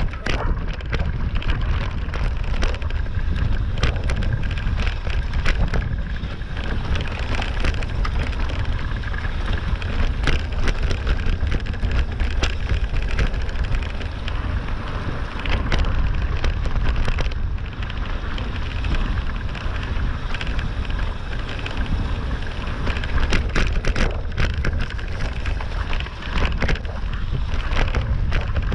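Electric mountain bike riding over a dry, leaf-covered dirt and gravel track: wind rumbling on the microphone, with a constant crackle and rattle of tyres over leaves and stones.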